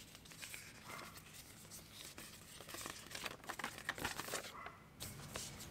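Faint paper rustling and crinkling as the AirPods Pro's paper documentation sleeve and box packaging are handled, with scattered light clicks and taps.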